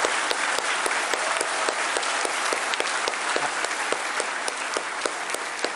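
A large crowd applauding, with many claps falling into an even beat of about three to four a second.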